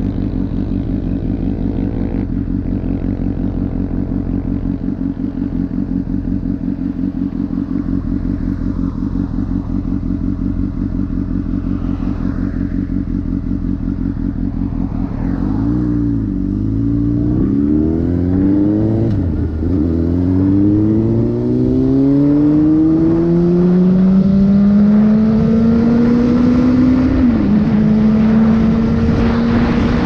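Honda CBR600RR inline-four engine idling steadily for about fifteen seconds, then pulling away: the note rises through the gears, dropping back at each upshift, and settles into a steady, slowly climbing note in a higher gear near the end.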